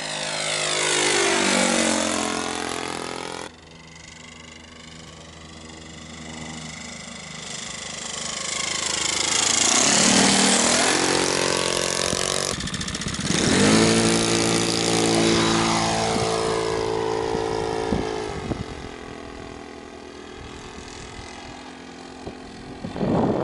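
Radio-controlled Van's RV-4 model airplane flying past low, its motor and propeller note falling in pitch as it passes, then rising again as it comes back round. The sound cuts abruptly twice, and grows quieter near the end as the plane flies off.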